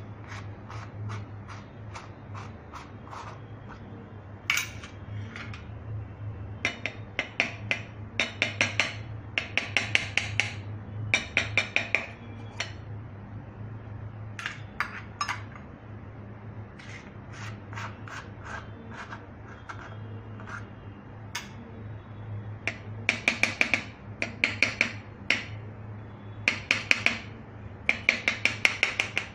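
Steel kulfi mould clicking and scraping in quick runs of small metallic taps as it is twisted and knocked to free the frozen kulfi, over a steady low hum.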